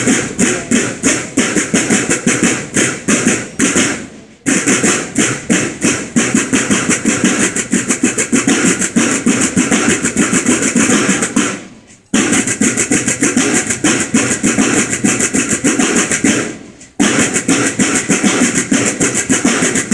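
Snare drums of a marching drum corps playing a fast cadence of rapid strokes, in phrases broken by short pauses about four, twelve and seventeen seconds in.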